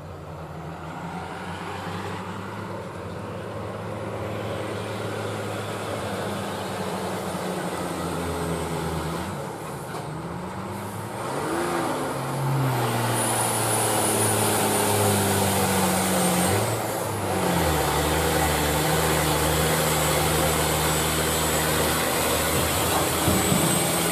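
Diesel engine of a Hino 500 dump truck loaded with rock, labouring up a steep grade and growing louder as it nears. Twice, about ten and seventeen seconds in, the engine note breaks and then climbs again, as the driver shifts gear on the climb.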